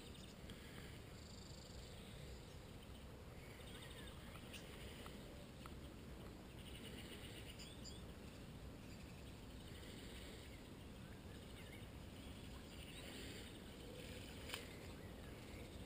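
Quiet outdoor ambience: a steady low rumble under a faint chirping call that returns every two to three seconds, with a single sharp click near the end.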